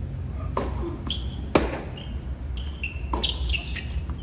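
Tennis ball being struck by rackets and bouncing on a hard court during a doubles rally: a few sharp pops, the loudest about a second and a half in.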